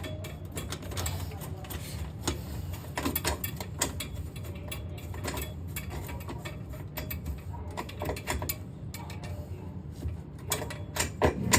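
Irregular small clicks and knocks of a sink pop-up drain's pivot rod and ball being worked into the drain body by hand, over a steady low hum.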